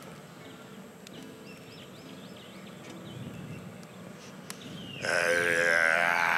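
Quiet stage for about five seconds, then a man's voice lets out a loud, drawn-out groaning cry that wavers slightly in pitch and carries on.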